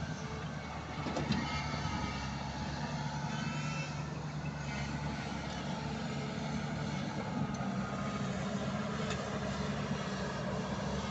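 Excavator's diesel engine running steadily at working revs, with a few sharp knocks.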